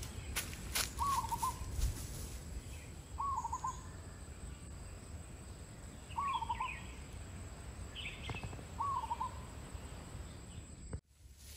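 A bird gives a short call four times, two to three seconds apart, with a few higher chirps from other birds. Near the start there are a few crunches of bare feet on dry leaves.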